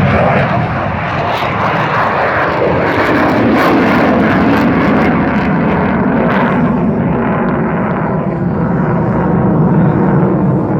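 Jet engines of Thunderbirds F-16 fighters running loud and steady during start-up. About six seconds in the high hiss fades and the sound settles lower.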